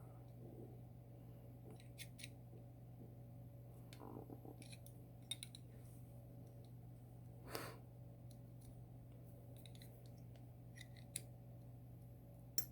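Faint, scattered small metal clicks and taps from handling the parts of a gutted Tann lever lock, over a steady low hum.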